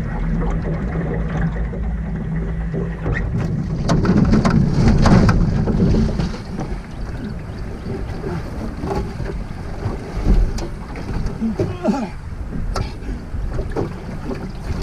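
Wind on the microphone and water around an aluminium jon boat, with a louder burst of noise and knocks about four to six seconds in and a single low thump on the hull about ten seconds in.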